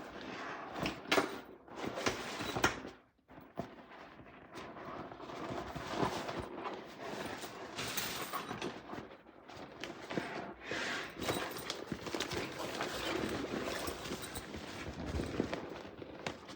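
Waterproof rolltop backpack being handled: its rubbery fabric rustles and crinkles, with several sharp clicks and knocks from its fittings.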